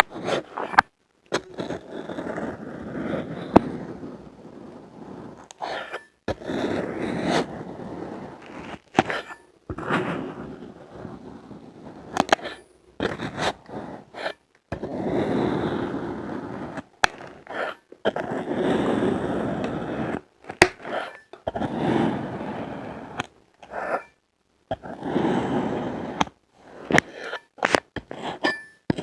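Colored kinetic sand being cut and crunched: a series of gritty crunching, scraping strokes, each lasting one to three seconds, with short breaks and sharp clicks between them.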